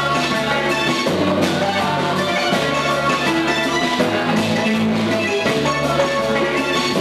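Live church worship music: a band with drums playing while a group of women sing.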